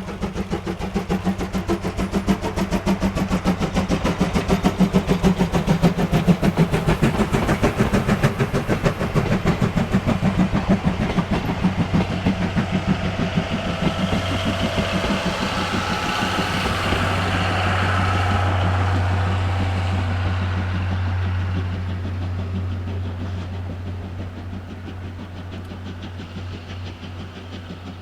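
Tobu C11 tank steam locomotive (C11-325) working past with a train, its rapid exhaust chuffs loudest in the first half. The chuffing gives way to the passing train's running noise and a steady low engine drone, then slowly fades.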